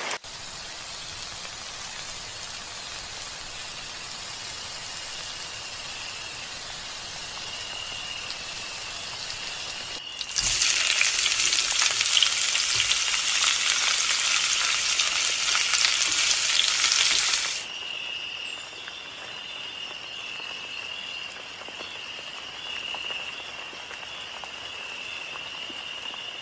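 Fish frying in hot oil with a steady sizzle. About ten seconds in, the sizzle turns much louder for around seven seconds, then settles back to a quieter sizzle. A faint steady high whine runs under it.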